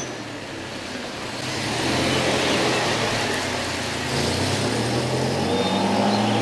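Small hatchback car driving off along a gravel road: its engine running with tyre noise on the gravel, getting louder about a second and a half in.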